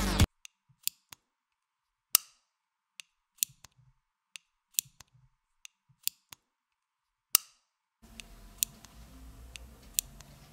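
Knitting needles clicking together in sharp, irregular clicks, about one every second, at first over dead silence and from about eight seconds in over faint room tone. Electronic music cuts off at the very start.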